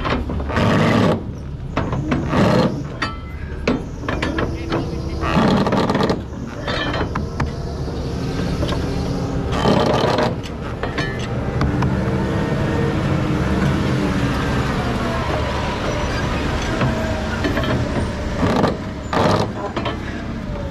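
Truck engine running as the rig moves off, its pitch rising and falling through the middle of the stretch, with several short, loud rushes of noise over the steady rumble.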